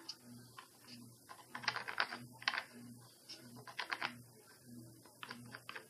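Paintbrush scraping and dabbing on a paper plate palette as paint is mixed: a run of irregular short scratches and taps over a faint low hum.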